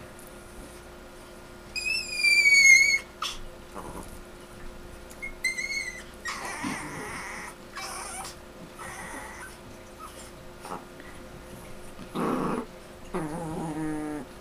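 Chihuahuas play-fighting: a long, high-pitched screech about two seconds in that falls slightly in pitch, a shorter screech around six seconds, rough huffing noises in between, and a low wavering growl near the end.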